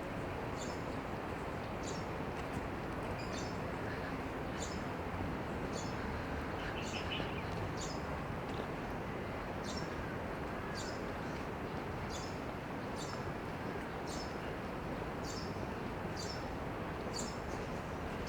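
A bird giving short, high chirps about once a second, over a steady hum of background noise.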